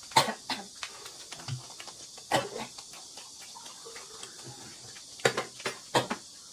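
Eating at a table while a small plastic snack packet is torn open: a few short sharp clicks and smacks, one just after the start, one about two seconds in and a cluster near the end, over a steady hiss.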